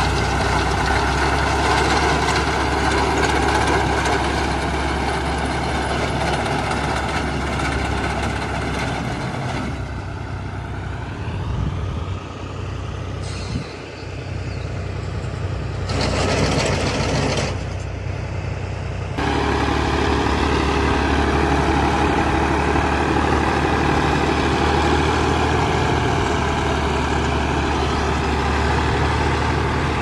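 Fiat 480 tractor's three-cylinder diesel engine running steadily under load while it drives a front-mounted reaper through standing wheat. The engine drops back for a stretch in the middle, then comes back loud and steady about two-thirds of the way in.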